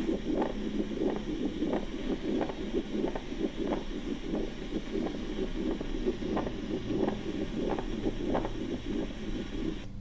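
Recorded heart-sound audio of a pericardial friction rub: short scratchy, rasping strokes repeating in a steady rhythm with the heartbeat, about three strokes every two seconds, over a steady hiss.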